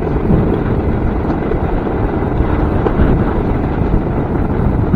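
A DIY electric railcart rolling along old rail track, a steady rumble, with wind buffeting the microphone.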